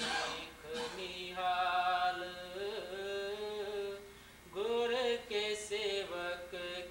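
A voice chanting a devotional hymn verse in long, held notes that slide between pitches.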